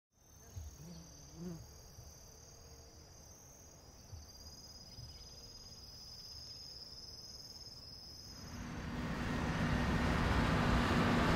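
Insects trilling steadily in two high tones, with a few faint low thumps early on. About eight seconds in, the noise of a heavy truck swells in and becomes the loudest sound.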